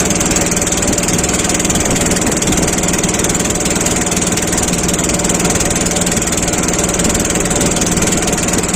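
A small engine running steadily and loudly at a constant speed, with no change in pitch.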